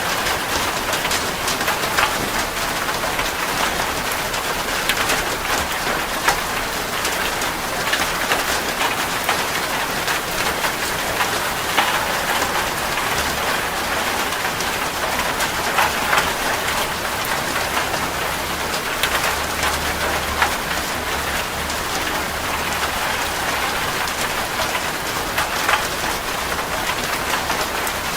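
Steady rain with many individual drops ticking on a surface.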